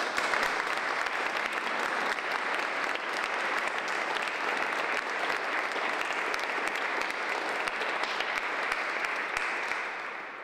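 Audience applauding steadily: a dense patter of many hands clapping, easing slightly near the end before it cuts off abruptly.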